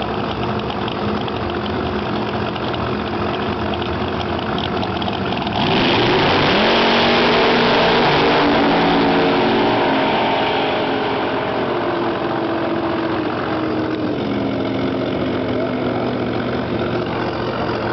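Altered drag car's engine idling, then launching at full throttle about five and a half seconds in: the revs climb sharply and the sound slowly fades as the car runs away down the strip. A steady engine idle carries on afterward.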